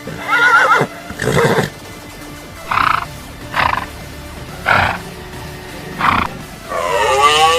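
A horse whinnying in a quavering call, followed by five short calls spaced about a second apart, with background music. Near the end a long bleat begins.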